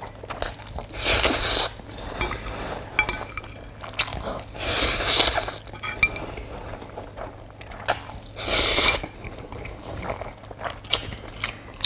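A person slurping black-bean-sauce instant noodles (Chapaghetti) up from chopsticks, three long slurps about four seconds apart. Between them come short clinks of chopsticks against a ceramic bowl.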